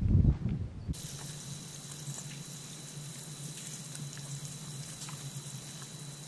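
A short low rumble, then an abrupt change about a second in to a wet mudflat crackling and fizzing with many small ticks where a colony of fiddler crabs scurries about. Under it run a steady hiss and a thin, steady high whine.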